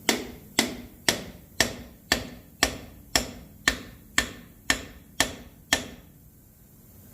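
Twelve evenly spaced hammer blows, about two a second, drive a chisel between the intake manifold and block of a Ford 429 big-block V8, stopping about six seconds in. The strikes sound hollow, a sign that the intake is breaking loose from its gasket.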